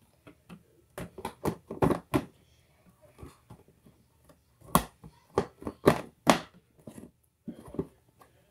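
Irregular knocks and clatters of things being handled and set down on a kitchen counter close to the phone, coming in clusters.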